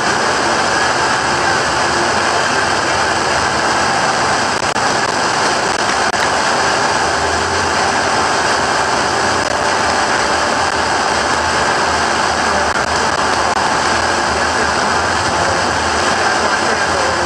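A field of RUSH crate dirt late model race cars running at speed, their V8 engines blending into one loud, steady engine noise.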